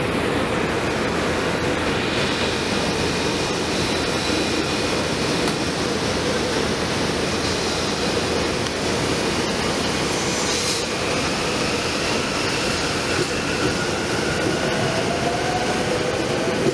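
Rotem Silverliner V electric multiple-unit train pulling out of an underground station: a steady rumble of wheels and running gear with faint high whining tones, and a rising motor whine near the end as it picks up speed.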